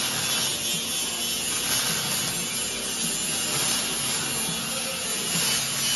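Steady grinding noise of an angle grinder working on a steel frame, with no pauses.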